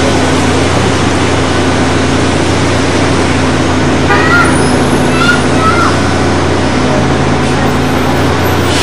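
City street traffic: cars passing close by and trolleybuses moving, a loud steady rumble with a low hum underneath. A few short high chirps or squeaks come about four to six seconds in.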